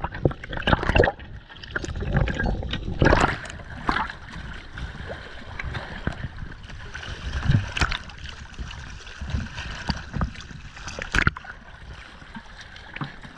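Water sloshing and gurgling around a boat, with irregular knocks and thumps: the loudest come about a second, three, eight and eleven seconds in.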